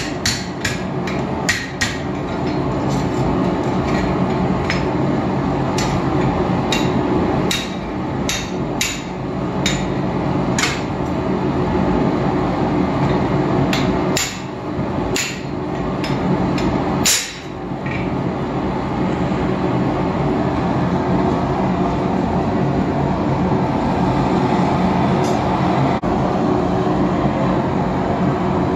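Blacksmith's hammer striking hot steel on an anvil: about twenty irregular ringing blows over the first half, the last one loudest, then the hammering stops. A steady roar from the running forge continues underneath.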